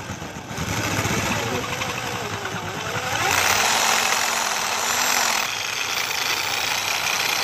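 Corded electric drill running, its bit cutting through a metal cable lug to enlarge the hole. The motor pitch falls and rises as the trigger and pressure vary, and a louder grinding cut comes in the middle.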